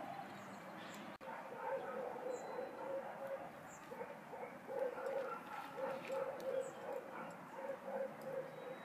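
An animal calling in a string of short repeated calls, a few to a second at uneven spacing, with a few faint high bird chirps.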